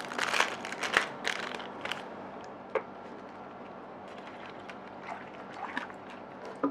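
Crinkling of the plastic MRE drink pouch as it is handled and opened for the first two seconds, then water poured from a bottle into the pouch, a faint trickle.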